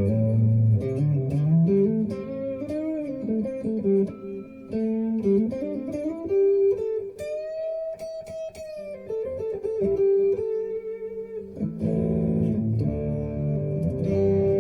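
Electric guitar lead playing on a Telecaster with Bare Knuckle Nomad pickups, on the neck pickup, through a Positive Grid Spark 2 amp's blues preset with overdrive, delay and reverb. Single-note licks with string bends, a held note with vibrato about halfway through, and fuller playing near the end.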